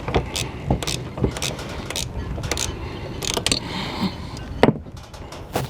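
Irregular metallic clicks and knocks of a hand tool tightening the chain stripper's fasteners on an anchor windlass, over steady background noise.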